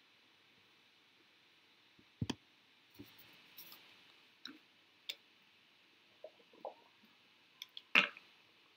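A few scattered light clicks and taps at irregular intervals over a faint hiss, the loudest a double tap near the end.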